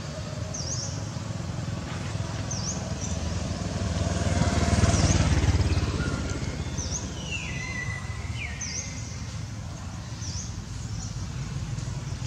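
A bird repeats a short, sharp chirp about every second and a half. Meanwhile the low rumble of a motor vehicle swells and fades, loudest about five seconds in. A couple of falling whistles come near the two-thirds mark.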